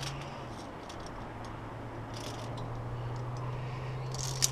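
Metal carabiners clicking and scraping against a via ferrata steel safety cable, in short scattered ticks, with one sharp metallic click near the end. A steady low hum runs underneath.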